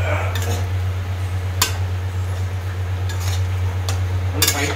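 Steel spatula scraping and knocking against an aluminium kadai while stirring a dry fried mixture, with a sharp clink about a second and a half in and a quick cluster of clinks near the end. A steady low hum runs underneath.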